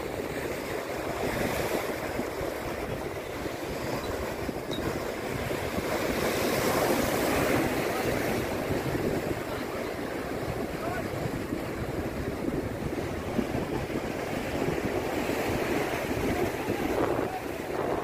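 Rough sea surf breaking and washing over concrete breakwater blocks, a continuous rushing that swells loudest about a third of the way in, with wind buffeting the microphone.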